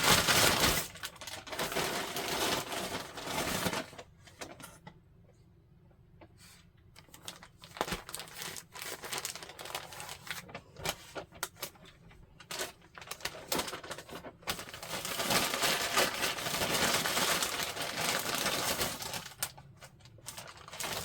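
Plastic packaging bag crinkling and rustling as hands search through it. It is busy for the first four seconds and again later on, with scattered small crackles and clicks in between.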